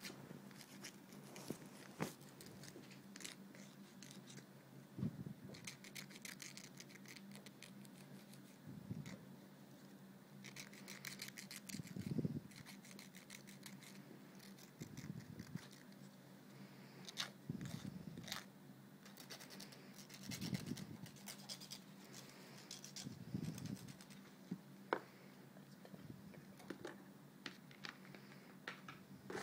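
Nail file rasping back and forth on acrylic nails in short runs of quick strokes, with soft handling thumps and a few clicks between them.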